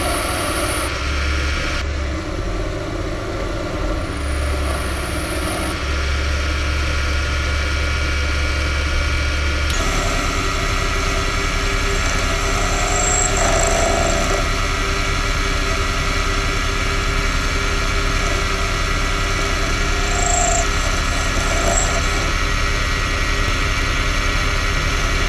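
Proxxon PD 250/e mini lathe running, a steady motor and drive hum, while a tool cuts the spinning steel nut: first facing its end, then, after an abrupt change in the sound about ten seconds in, boring its inside, with a few brief faint squeaks.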